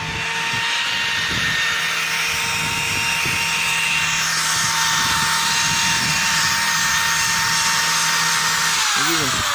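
A small electric power tool runs at a steady high-pitched whine while its attachment scrubs caked corrosion and grime off the washing machine's metal spider arm. Near the end the whine falls in pitch as the tool spins down.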